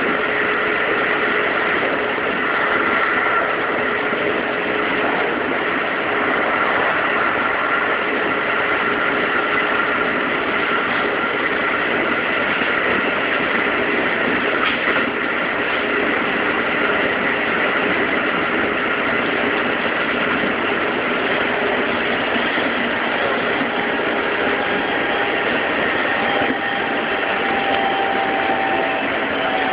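Keikyu 2100 series electric train running at steady speed, heard from behind the cab: continuous wheel-on-rail running noise with a few steady whining tones on top.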